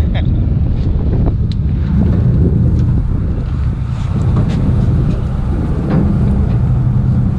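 Wind buffeting the microphone over the steady low rumble of a party fishing boat's engine, with a few faint ticks from handling the tackle.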